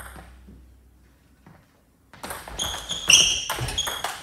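Table tennis rally: the ball clicking sharply off the paddles and the table in quick succession, each hit with a short ringing ping, starting about two seconds in after a near-silent pause.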